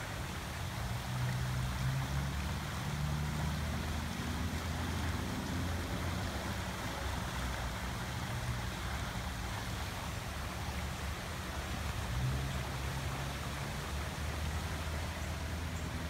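Floodwater rushing steadily through a swollen drainage creek in a strong current, with a low uneven rumble underneath.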